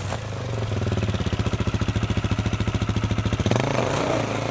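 Dirt bike engine chugging at low revs with a fast, even pulse while the bike is eased over a fallen log. It changes to a brief burst of revs about three and a half seconds in.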